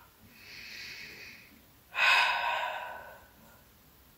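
A woman's breathing during the Pilates Hundred, paced as five-count inhales and five-count exhales: a soft breath in, then a strong breath out about two seconds in that starts suddenly and fades.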